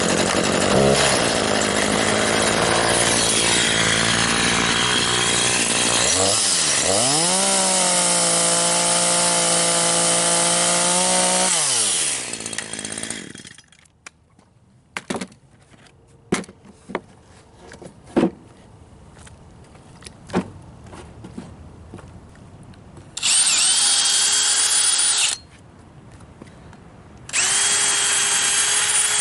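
A power saw cutting wood, running loudly for about twelve seconds, its motor pitch dipping and then holding steady partway through. After that come a few scattered knocks and then two short whirring runs of a cordless drill driving fasteners.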